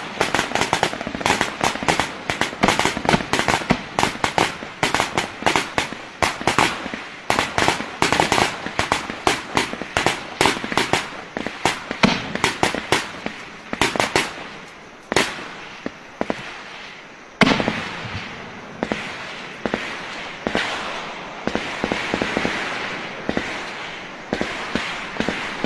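Gunfire in a firefight: rapid rifle shots, several a second and overlapping, with a single very loud shot about two-thirds in, after which the shooting thins to scattered shots.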